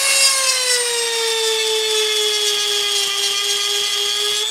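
EzzDoo rotary tool with a diamond bit grinding a chainsaw cutter tooth: a steady high motor whine whose pitch sags about a second in as the bit bears on the tooth under load, then rises again near the end.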